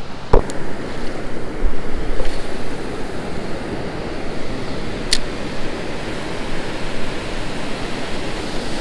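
Ocean surf washing in and foaming around the shallows, a steady rush of breaking waves. A sharp click sounds just after the start, and a brief high tick comes about five seconds in.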